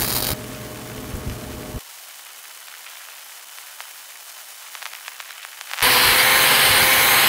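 Self-shielded flux-cored (E71T-11) wire welding arc crackling and hissing while laying a stringer fill pass. The arc is faint and thin with scattered crackles at first, then a loud steady crackling hiss comes in abruptly near the end.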